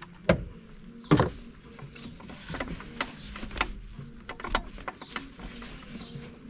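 Hand tool knocking and clicking against metal down in a car's engine bay by the gearbox: two sharp knocks in the first second and a half, then a scatter of lighter, irregular clicks.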